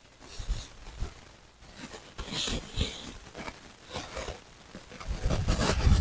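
Dry leaf and wood-chip mulch and parched soil rustling and crackling in irregular scrapes as a hand digs through it, pulling potatoes up out of the ground. A louder low rumble comes in near the end.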